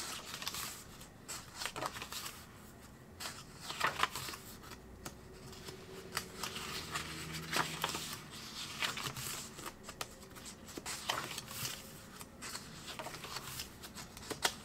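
Paper pages of a small sketchbook being turned and handled by hand: irregular rustles and flicks of paper.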